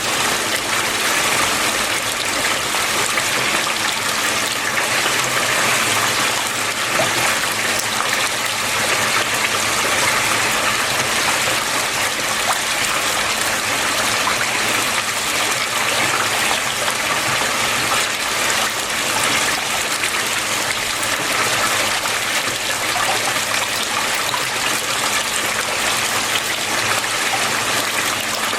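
Water flowing steadily, a constant even rush with no breaks or changes.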